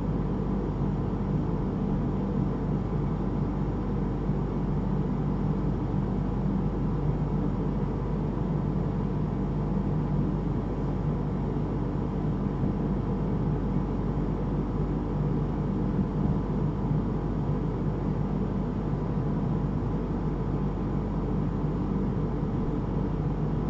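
Steady low drone and hiss of background noise, unchanging, with no distinct sounds standing out.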